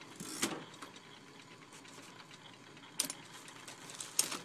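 IBM Executive electric typewriter running with a steady motor hum, with three or four slow, separate key strikes clacking over it, the loudest near the start and near the end.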